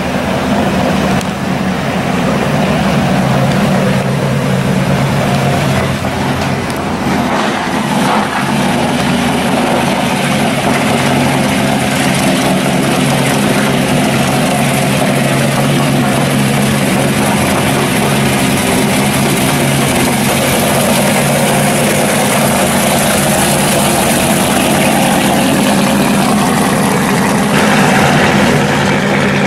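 1969 Chevelle pro street car's V8 running at low speed with a steady exhaust rumble as it rolls along, slightly louder near the end.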